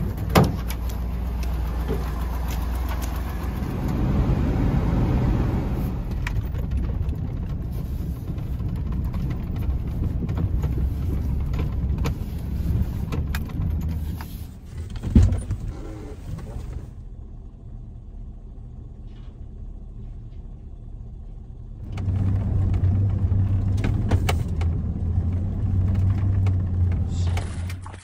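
Pickup truck being driven, heard from inside the cab: a steady engine and road rumble that drops quieter for a few seconds past the middle, then grows louder again near the end. There is a single sharp knock about halfway through.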